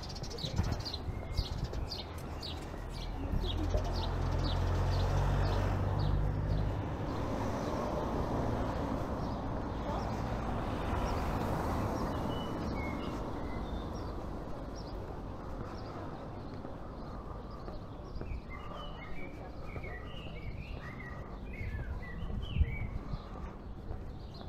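Street ambience on foot. An evenly repeated high chirp comes at the start, a motor vehicle's engine rumbles past a few seconds in, and steady traffic noise follows. Several small birds chirp near the end.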